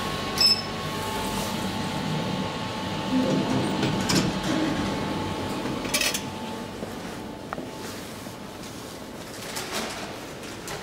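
2012 SMW traction elevator: a click and short high beep as the car button is pressed, then a steady hum from the car. Sharp clicks follow, as its doors slide open about six seconds in.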